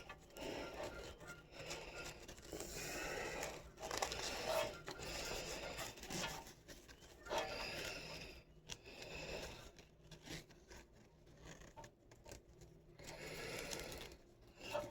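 Chest rig's straps and fabric being handled and fitted together: irregular rustling and scraping, in short spells with brief pauses.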